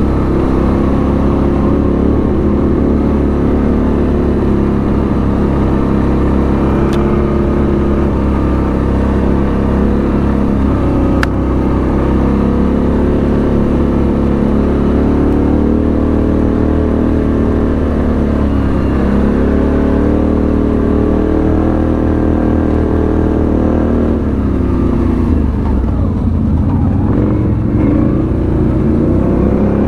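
ATV engine running continuously under way, its pitch rising and falling with the throttle, with a few deeper dips as it eases off and pulls again.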